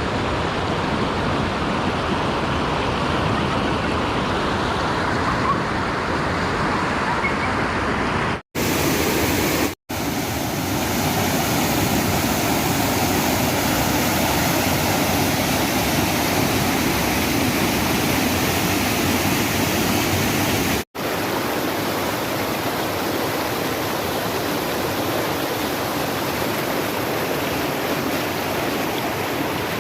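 Waterfall and river water rushing steadily, broken by three brief drops to silence.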